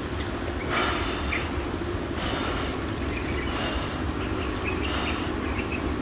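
Steady outdoor background: insects making a continuous high buzzing over a low, steady rumble.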